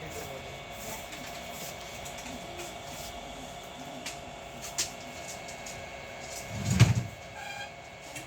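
Hot-air rework station blowing steadily while a phone's power IC is reheated, with a few light clicks, a heavy thump about seven seconds in, and a short pitched tone just after it.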